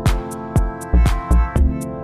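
Background music: sustained instrumental notes over a steady drum beat with regular kick and hi-hat strikes.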